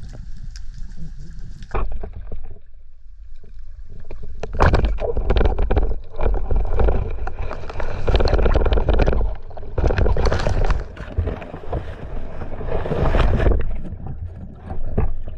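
Water turbulence picked up by a camera on a speargun during a dive: rushing, bubbling water noise with heavy low rumble, surging in repeated loud waves from about four seconds in.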